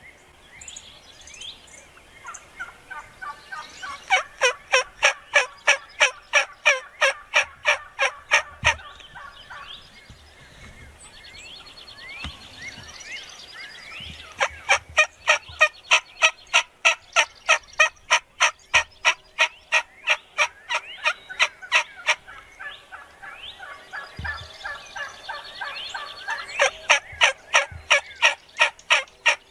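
Wild turkeys calling: three long runs of loud, evenly spaced sharp notes, about three a second, with softer yelps and short rising chirps between the runs.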